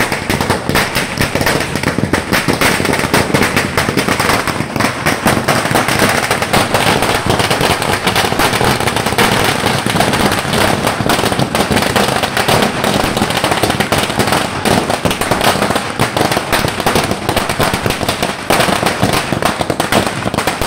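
A long string of firecrackers going off, a dense and continuous rapid crackle of pops. It is loud throughout, with only a slight dip near the end.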